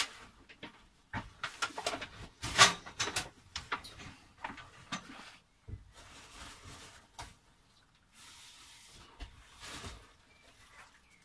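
Rummaging: plastic bags rustling and stored things knocked and shifted about, in scattered short bursts, the loudest about two and a half seconds in.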